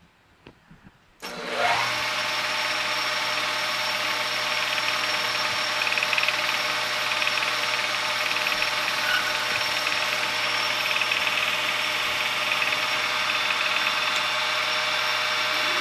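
A few light clicks, then about a second in a metal lathe is switched on, spins up quickly and runs steadily, its motor and headstock gearing giving a sound with several steady tones. The spindle speed has just been changed the wrong way, leaving the chuck turning slower than intended.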